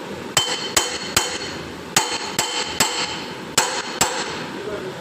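Hammer striking metal: eight sharp, ringing blows about 0.4 s apart, in a group of three, another three, then two.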